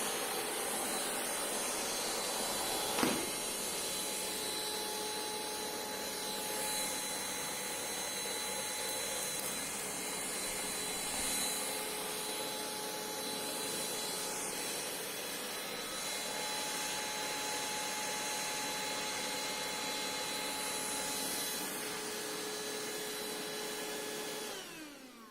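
Deerma VC20 cordless vacuum cleaner running steadily, a motor whine over the rush of air, with a single knock about three seconds in. Near the end it is switched off and the motor winds down, its whine falling in pitch.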